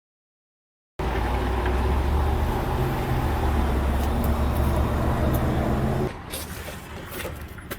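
Pickup truck engine running steadily with a low hum, starting after about a second of silence. About six seconds in it drops away abruptly, leaving a quieter background with a few light clicks.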